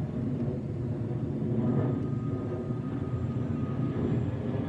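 Boeing 737-800's two CFM56-7B turbofans, a steady low rumble as the airliner passes overhead on its climb-out. A faint high whine comes in about two seconds in and fades shortly before the end.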